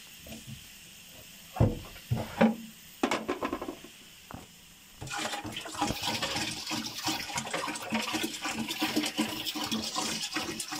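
Water poured from a plastic jerrycan into a plastic water cooler, splashing steadily from about five seconds in. Before that come a few knocks.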